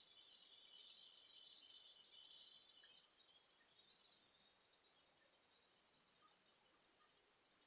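Faint chorus of insects: a steady high-pitched trilling hum that rises a little in pitch about three seconds in and fades near the end, with a few faint short chirps.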